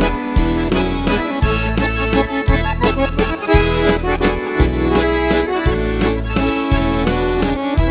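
Accordion playing the instrumental introduction to a gaúcho-style waltz, over bass notes that change about once a second.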